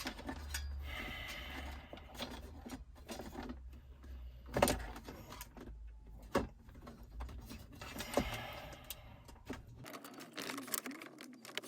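Hands working behind a car dashboard, handling radio wiring, connectors and plastic trim: rustling and scattered clicks with a sharp knock about halfway through.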